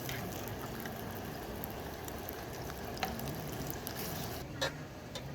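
Food cooking in a pan on a camp stove: a steady sizzling and bubbling, with a few light clicks.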